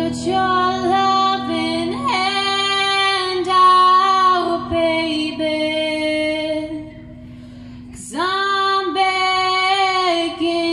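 A young woman singing live into a microphone: long held notes that slide between pitches, with a break of about a second shortly after the middle. Guitar plays quietly underneath.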